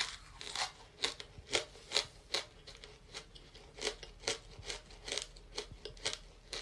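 A mouthful of chalk being chewed: a string of short, dry crunches, about two a second, growing fainter toward the end as it breaks down.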